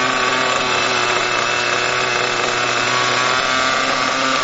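Small radio-controlled model helicopter engine idling steadily, with an even, unchanging pitch.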